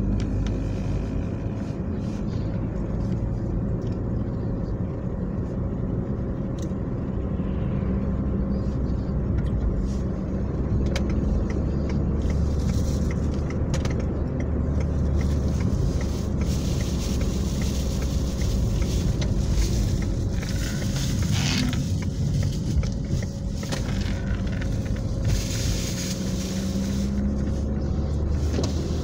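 Car driving at steady speed, heard from inside the cabin: a steady low engine and tyre rumble with a faint steady whine and a few light knocks.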